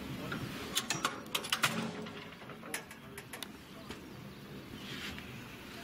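Quiet outdoor background with a cluster of sharp clicks about a second in and a few fainter ones a little later, and a bird cooing faintly.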